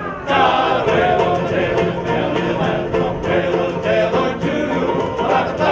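Music: several voices singing together in chorus over a steady low note.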